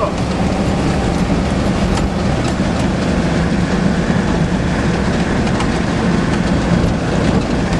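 Ford diesel pickup truck driving, its engine running steadily under a constant rumble, with a few light knocks scattered through.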